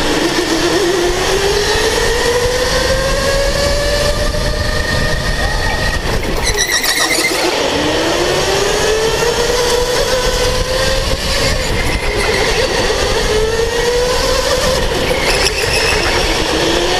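Electric go-kart motor whining under a steady rushing noise. The pitch climbs as the kart accelerates out of each corner and drops away when it slows, about four times over. A brief harsh noise comes about seven seconds in.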